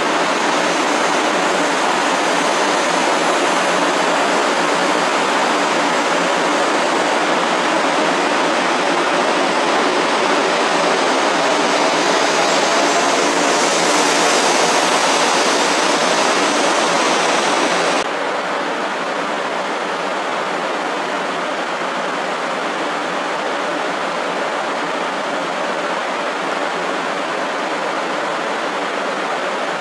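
Steady rushing noise on a Shinkansen platform as an N700 series Shinkansen pulls out on the far track; the noise swells and grows hissier toward its peak about halfway through. About two thirds of the way in it drops abruptly to a quieter steady rushing hum.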